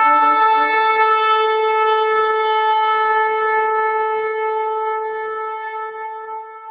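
A shofar sounding one long held blast: a brief lower note at the start, then a single steady tone that slowly dies away near the end.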